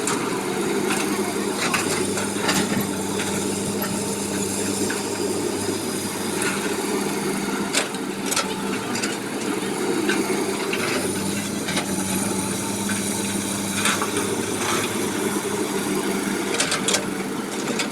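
Excavator's diesel engine running steadily, with scattered sharp knocks and clanks.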